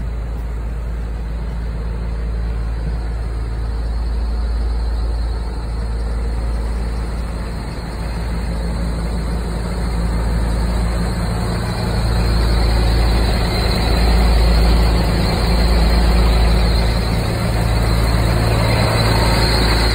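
Scania truck's diesel engine idling steadily, with a low rumble that grows louder about twelve seconds in.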